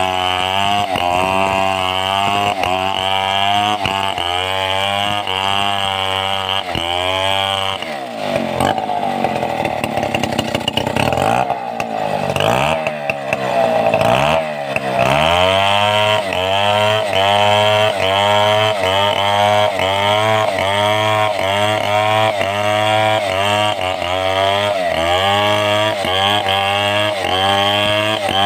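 Stihl 070 two-stroke chainsaw running at high revs under cutting load, its engine note dipping and recovering about twice a second. Midway, for several seconds, the revs fall lower and waver before climbing back to the same rhythm.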